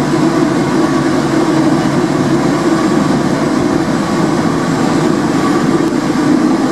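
Porto Metro light-rail tram running through a tunnel: a loud, steady rumble of wheels on rail and running gear, heard from inside the car.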